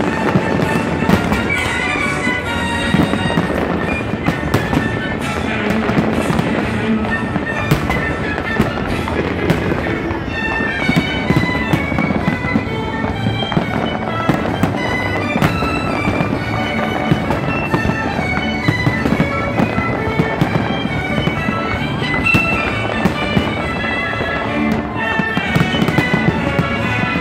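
Aerial fireworks going off in many quick bangs, heard close up, over music with long held tones.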